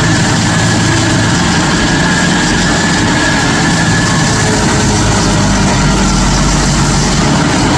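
Stump grinder running: a loud, steady engine note with a faint high whine over it.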